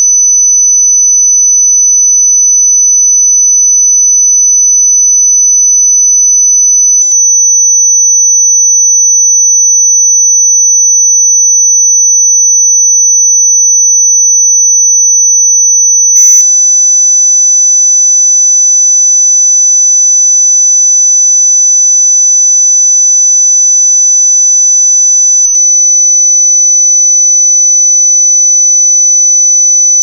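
Continuous, loud, high-pitched electronic 6 kHz sine tone, an anti-bark dog-whistle tone, held perfectly steady. Faint tiny clicks break it three times, about nine seconds apart.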